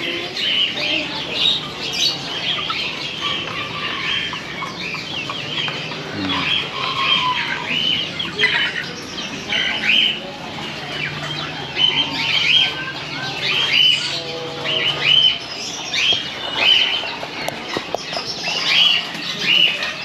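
Many caged birds chirping and calling at once: a dense, continuous chorus of short high chirps.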